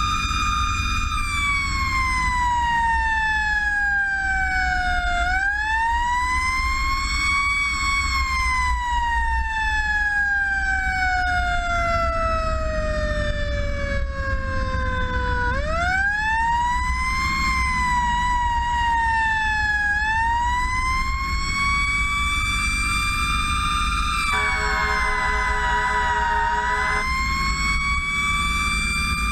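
Fire engine siren wailing in long, uneven sweeps, each rising quickly and falling slowly, over the steady low rumble of the truck's engine and road noise. A steady horn blast of about three seconds sounds near the end.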